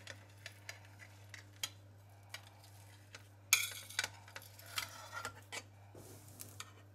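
Metal offset spatula scraping and clicking against a ceramic plate as a strawberry gelatin disc is pushed off it, with scattered light clicks and a louder scrape about three and a half seconds in. A faint steady low hum runs underneath.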